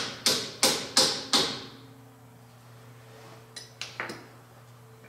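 Hammer blows on a steel driver, tapping a balancer shaft bushing into its bore in a cast iron Kubota engine block. There are five sharp ringing strikes, about three a second, then three lighter taps about three and a half seconds in.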